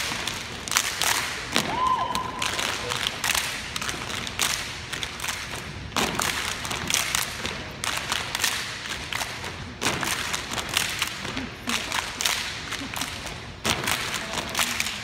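Step team stomping and clapping in unison: sharp stomps and claps in rhythmic phrases, with short quieter gaps between them.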